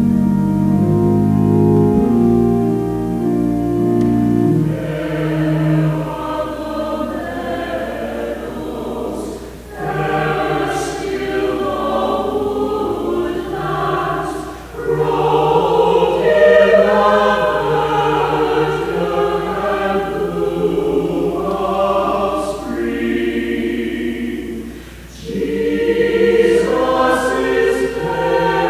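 Pipe or electronic church organ playing sustained chords, then a choir singing with the organ in the phrases that follow, with short breaks between sung lines.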